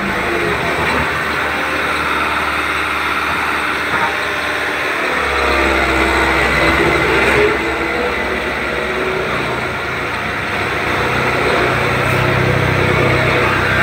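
Farm tractor's diesel engine running as it drives slowly past pulling a water tanker. A deeper low rumble joins about five seconds in.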